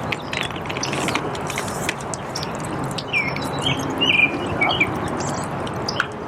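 Songbird calls: a run of short chirps, some falling in pitch, starting about three seconds in, over a steady rushing background noise, with a few sharp clicks in the first couple of seconds.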